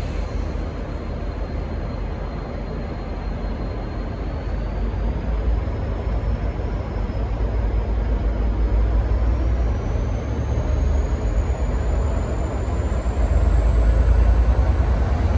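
V/Line N class diesel-electric locomotive pulling out under power: a heavy low engine rumble with a thin high whine that climbs steadily in pitch, the whole growing louder toward the end as the train gathers speed.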